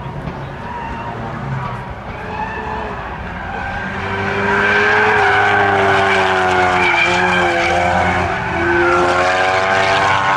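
Ford Focus RS Mk3's 2.3-litre turbocharged four-cylinder engine under hard throttle as the car powerslides, its pitch wavering up and down, with tyres squealing. It gets much louder about four seconds in.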